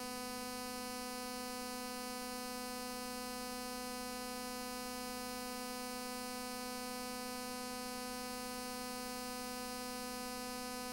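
Steady electrical hum with a buzzy stack of overtones, unchanging throughout: the noise of the tape transfer, with no sound from the filmed scene.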